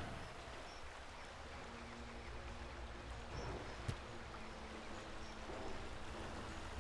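Steady outdoor background hiss with a low rumble, and one sharp click about four seconds in.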